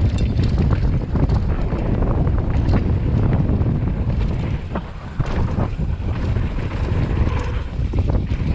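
Wind rushing over a chest-mounted GoPro's microphone as a Commencal Meta HT hardtail mountain bike descends a dirt jump trail at speed, with tyres on hard-packed dirt and frequent sharp knocks and rattles from the rigid-rear bike over bumps. The rushing dips briefly about halfway through.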